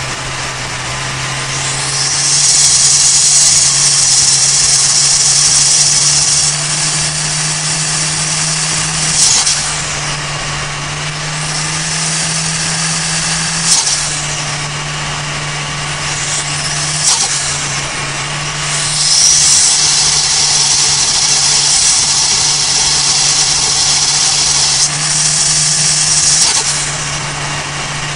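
Turbocharged 1.5-litre engine of a Toyota Avanza Veloz at highway speed, heard from inside the car: a steady engine drone under a loud, high turbo whine and hiss that swells for a few seconds at a time and falls away as the throttle eases. Three short sharp bursts come as the throttle closes, about 9, 14 and 17 seconds in.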